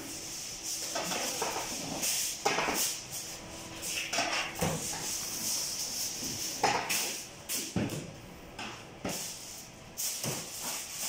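Kitchen handling noises: irregular knocks and clatter, with faint talk in the background.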